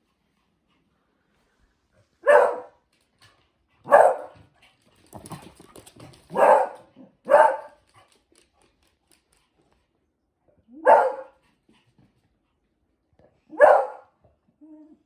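A dog barking in six short single barks, spaced irregularly a second or more apart, with some fainter scuffling between the second and third barks.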